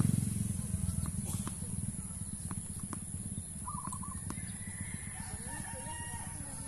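A rooster crowing, one long call late on, mixed with several sharp pops of tennis racket strings striking the ball during a rally, over a steady low outdoor rumble.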